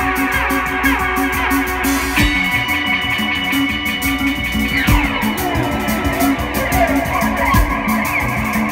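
Live psychedelic rock band playing an instrumental jam: electric guitar and bass over drums, with a repeating low riff. A high note holds from about two seconds in, and another slides steeply down about five seconds in.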